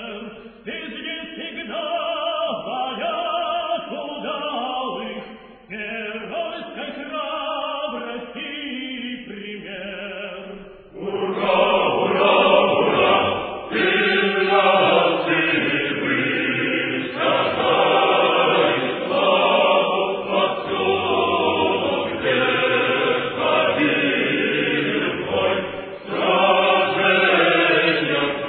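Choir singing a Russian military song with words; the singing grows louder and fuller about eleven seconds in.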